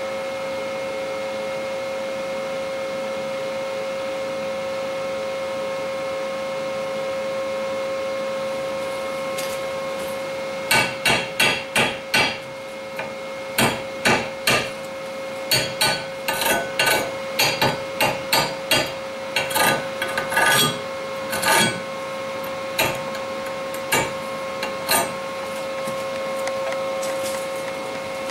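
Chipping hammer knocking slag off a freshly laid stainless steel stick-weld cover pass: a few dozen sharp hits in quick runs of three or four a second, starting about ten seconds in and thinning out to single blows near the end, over a steady hum.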